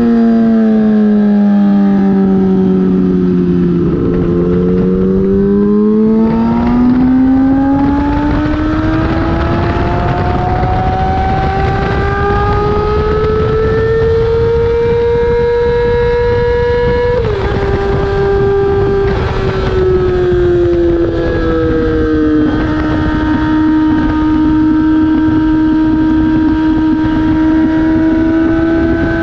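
Race motorcycle engine heard onboard at speed. The revs fall for the first few seconds, then climb slowly for a long stretch. About seventeen seconds in, an upshift drops the pitch, and the revs then ease down and hold fairly steady. A rush of wind and road noise runs underneath.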